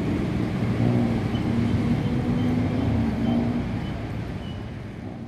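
Motor traffic: a vehicle engine running with a steady low hum over road noise, fading out near the end.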